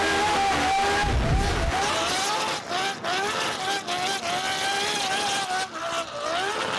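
Naturally aspirated Judd V10 in a Toyota Supra drift car revving high, its pitch rising and falling as the throttle is worked through a slide, with a few brief drops in revs.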